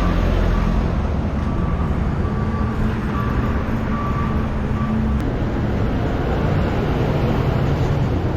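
A motor vehicle's engine running steadily, with a reversing alarm beeping about once a second for the first five seconds or so.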